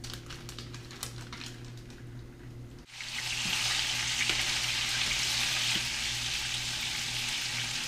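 Crappie fillets frying in olive oil in a pan, a steady sizzle that starts suddenly about three seconds in. Before it there are only a few faint clicks.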